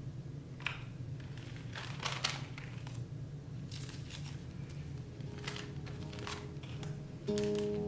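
Packaging being handled: short bursts of crinkling and rustling, several times, over a low steady hum. Guitar music comes in faintly about five seconds in and swells near the end.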